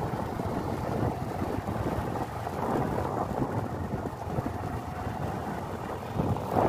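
Wind buffeting the microphone on a moving vehicle, with a rumble of engine and road noise underneath.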